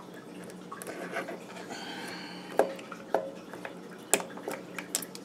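Snap ring being worked onto a transmission shaft with snap-ring pliers: soft metal scraping with a brief ring, then a series of sharp metallic clicks as the ring is clipped into place, the loudest about two and a half, three and four seconds in.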